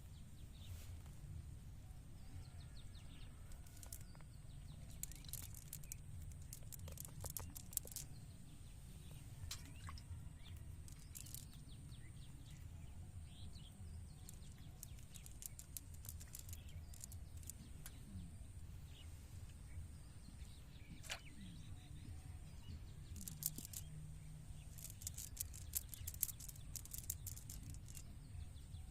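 Faint rural outdoor ambience: birds chirping now and then over a steady low rumble and a thin high hiss, with several bursts of quick small clicks.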